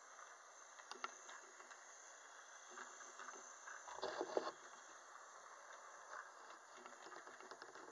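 Model passenger train running on its track, faint and quiet: light wheel clicking with a short louder clatter about four seconds in.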